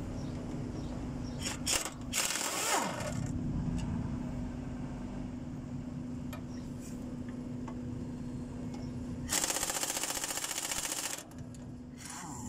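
Air impact wrench hammering on the bolts of a truck's clutch pressure plate, loosening them to take the clutch off: a short burst about two seconds in that winds down, and a longer, louder burst of about two seconds near the end. A steady low hum runs underneath.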